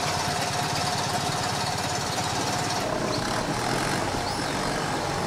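Small two-cylinder air-cooled engine of a Polski Fiat 126p running steadily with a fast, even low putter, just brought back to life after repair.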